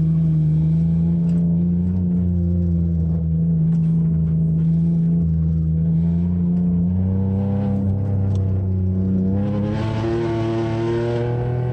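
Car engine heard from inside the cabin during an autocross run, holding a steady note, then revving higher under acceleration from about seven seconds in, with a louder, rougher rush near the end.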